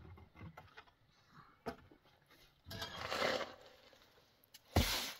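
A long-handled tool scraping and pushing through a pile of sand and cement mix: a sharp knock a little before two seconds in, then two scraping strokes, one about three seconds in and a shorter, louder one near the end.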